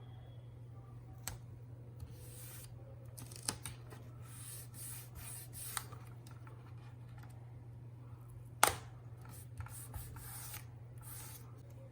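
Hands working on a laptop: short scraping and rubbing strokes with several sharp clicks, the loudest about two thirds of the way in, over a steady low hum.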